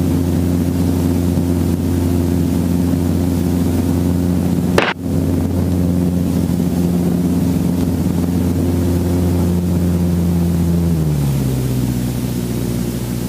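Robinson R22 helicopter's engine and main rotor running with a steady drone. There is a brief break about five seconds in, and the pitch steps down about eleven seconds in as the rotor slows.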